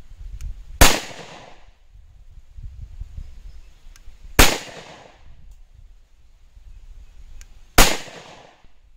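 Three single pistol shots from a PSA Rock 5.7x28mm pistol with a non-threaded barrel, firing S4 rounds at an even pace about three and a half seconds apart, each followed by a short echo.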